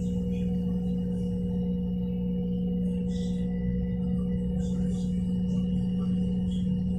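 LG front-load washing machine in its high-speed spin, the drum and motor giving a steady, even hum with a low rumble. A few faint short hisses come through above it.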